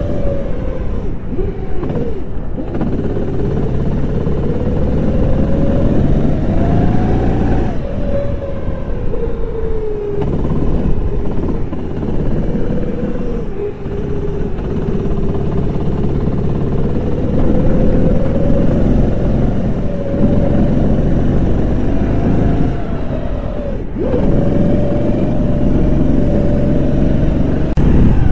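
Kart engine under way, its note climbing along the straights and dropping abruptly four or five times as the throttle is lifted for corners, over a steady low rumble.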